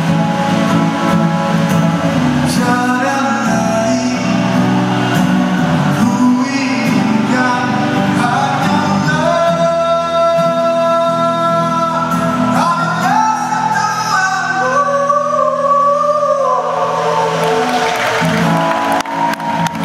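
Male singer singing a slow song to his own acoustic guitar, amplified through a stage PA, with long held notes and slides between pitches through the middle.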